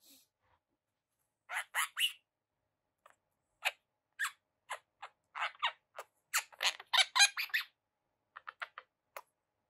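Young monk parakeet (Quaker parrot) giving short, harsh chirps in irregular clusters, busiest through the middle, with a run of quicker, fainter ones near the end.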